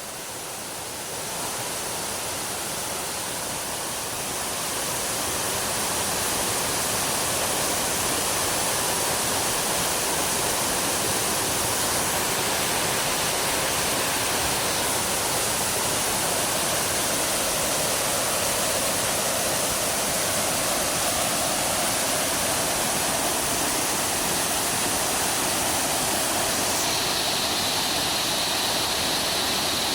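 Waterfall, a steady rush of falling water. It grows louder a few seconds in and then holds even.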